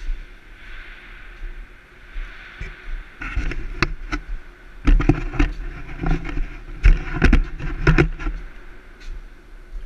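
A run of knocks, clanks and thuds, bunched between about three and eight seconds in, from a climber's boots and hands on the ladder rungs going down into a ship's cargo hold. Before them there is a steady hiss.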